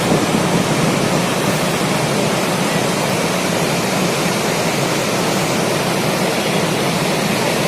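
Heavy floodwater pouring from a dam in a steady, unbroken rush.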